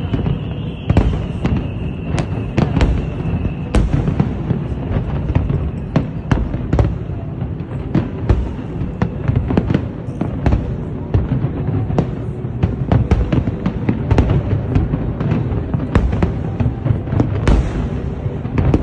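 Fireworks bursting continuously: many sharp cracks and pops over a constant deep rumble of booms. A faint high whistle glides down in pitch during the first few seconds.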